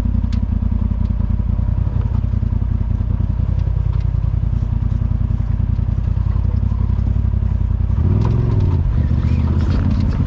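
A Polaris RZR side-by-side's engine runs steadily as it drives a trail, with light clatter from the machine. About eight seconds in, the engine revs up briefly and settles again.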